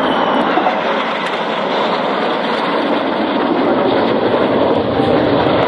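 Formation of F-5E Tiger II jets, each with twin J85 turbojets, flying in the display: a steady jet roar, with a faint whine falling in pitch in the first second or so.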